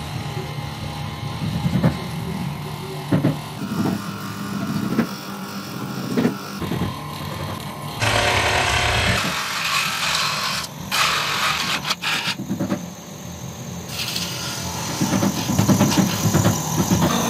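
Belt-driven wood lathe running with a glued-up wooden hot pot body spinning on it, a hand-held tool scraping and smoothing the turning wood at times. The sound changes suddenly twice.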